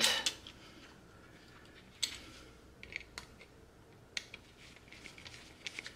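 Scattered light clicks and taps from handling an old electrical receptacle and a screwdriver, with quiet stretches between them.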